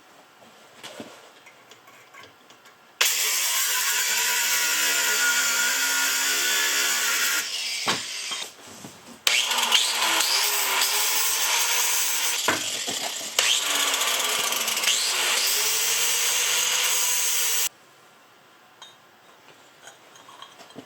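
A power tool grinding metal intake piping in two long runs, the first about four seconds and the second about eight, its motor pitch dipping and recovering as it bites. A few small handling knocks come between and around the runs.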